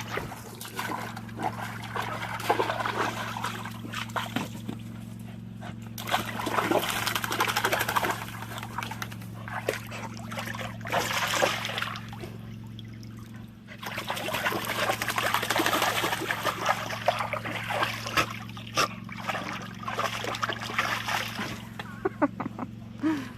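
A dog splashing and moving about in the water of a foldable PVC pet pool, in stretches of several seconds with short lulls between. A steady low hum runs underneath.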